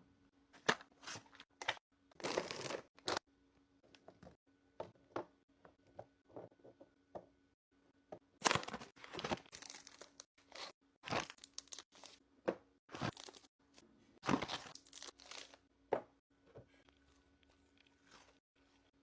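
Close-miked handling of food packaging and tableware: irregular crinkling and tearing bursts, mixed with sharp taps and clicks.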